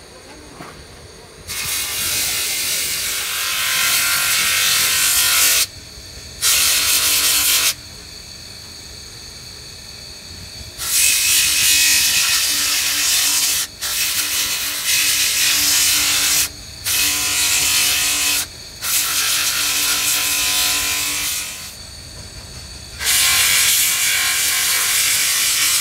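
A small grinding disc on a bench grinder's spindle grinds the teeth of a spiral-bevel differential pinion gear. The grinding comes in about seven passes of one to four seconds each, with the motor running more quietly between passes.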